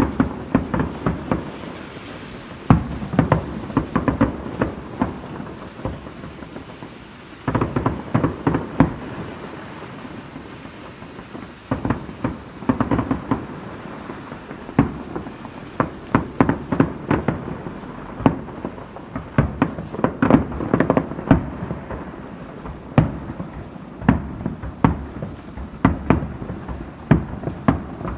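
Fireworks bursting in rapid volleys: clusters of sharp bangs, several a second, with short lulls between.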